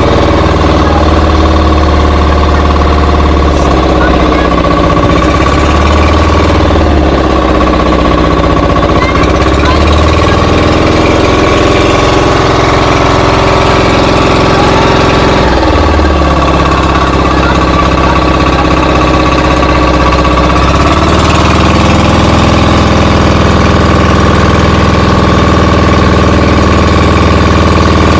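An engine running steadily and loudly, with a slight change in its note about halfway through and again near the end.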